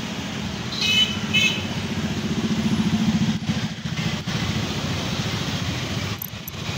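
Motor scooters running past in street traffic: a steady low engine drone that swells over the first few seconds, over a hiss of traffic, with two short high beeps about a second in.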